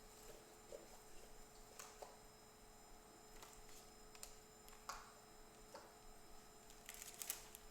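Near silence: room tone with a faint steady hum and scattered faint clicks, a few more of them near the end.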